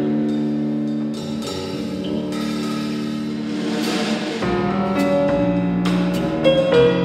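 A live band playing: held chords over a drum kit. About four seconds in, a cymbal wash swells and fades, and sharper drum strikes come near the end.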